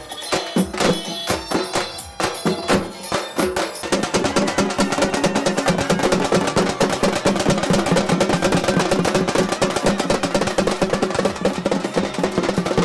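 A street band of large stick-beaten drums playing a fast, dense rhythm. From about four seconds in, a reed pipe joins with a sustained melody over the drums.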